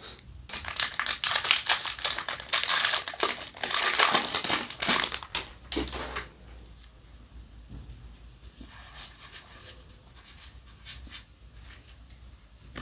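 Trading cards and plastic handled at close range: loud crinkling and rustling for about six seconds, then quieter soft shuffling of a stack of cards.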